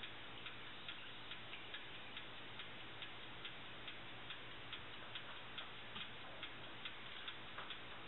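Faint, regular ticking at about two ticks a second, with a low steady hum underneath.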